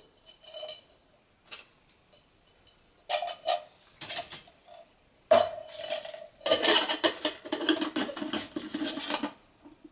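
Aluminum cook pots clanking and scraping as a small inner baking pan is lifted out of a larger pot with a pot gripper and set down. There is a ringing metal clank about halfway through, then a longer spell of clattering near the end.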